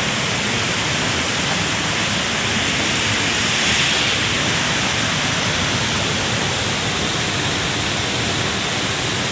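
Waterfall rushing steadily, a loud even wash of falling water.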